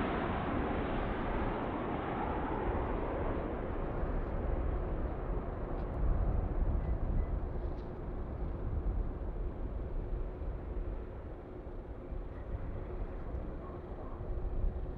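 Jet airliner's engines with a rushing roar that fades steadily as the aircraft moves away, leaving a low rumble and a faint steady whine.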